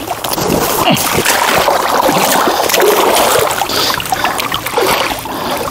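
Pond water splashing and sloshing as a hooked fish thrashes at the surface while it is landed.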